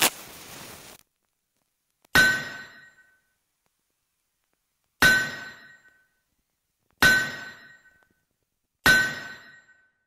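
Four single hammer blows on a blacksmith's anvil, spaced two to three seconds apart. Each is a ringing clang that dies away in under a second. It opens with a short sharp sound and a hiss lasting about a second.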